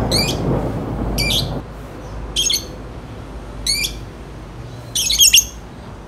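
Caged lovebirds giving short, high-pitched calls, about one every second and a bit, five in all, the last a longer, harsher call about five seconds in. A low rumble underneath stops about one and a half seconds in.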